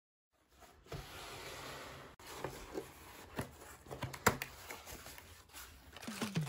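Cardboard shipping box being handled and opened by hand: scraping and light taps as the flap is pulled open, and crinkling plastic as the bagged part is slid out. The sound is faint and irregular, with scattered sharp ticks.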